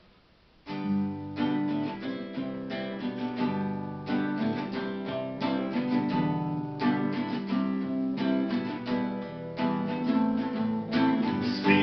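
Acoustic guitar strumming chords in an instrumental introduction, starting suddenly just under a second in with a quick run of repeated strokes.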